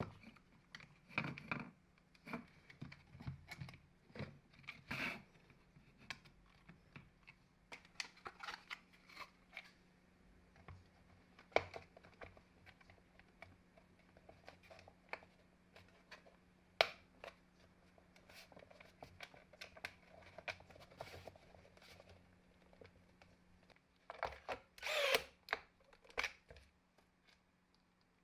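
Scattered clicks, knocks and clatter of tools and parts being handled during assembly work, with a denser burst of clatter near the end, over a faint steady hum.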